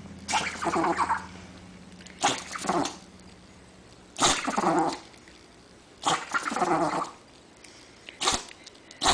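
A dog sneezing again and again, a short sudden burst about every two seconds, with quicker, shorter ones near the end.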